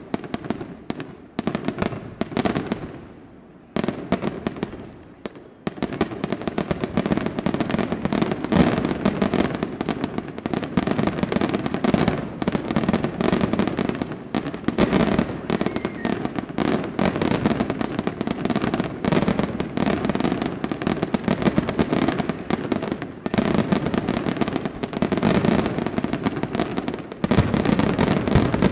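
Aerial fireworks bursting. For the first few seconds there are a few separate bangs, each fading away after it. From about six seconds in, a dense, continuous barrage of rapid bangs and crackling runs on, louder again near the end.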